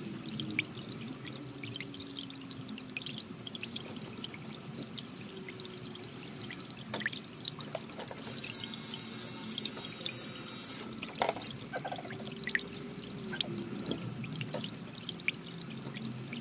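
Background music with low sustained tones, over many quick, light clicks of grooming scissors snipping a puppy's coat. A hiss lasting a few seconds comes in around the middle.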